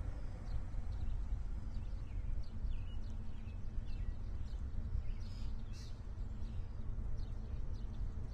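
Birds chirping in short, scattered calls over a low, steady rumble.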